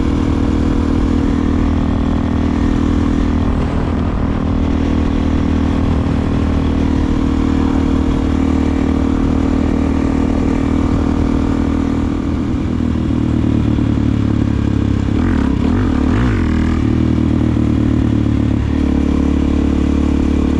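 Suzuki DR-Z400SM's single-cylinder four-stroke engine running steadily under way through an aftermarket Delkevic exhaust. The engine note shifts about two-thirds of the way through and again near the end.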